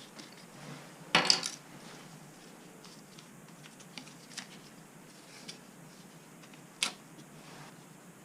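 Hand tools and small metal parts being handled during plumbing work: a quick cluster of sharp clinks about a second in, a few light ticks, and one sharp click near the end.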